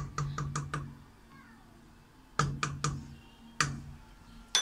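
Wooden spoon knocking against a stainless steel stockpot while stirring a stew: a quick run of about five knocks, three more about two and a half seconds in, then single knocks later on.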